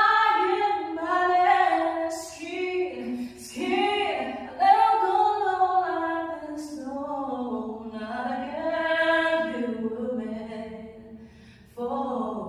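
A woman singing a cappella: one voice with long held notes that slide up and down, dropping briefly near the end before picking up again.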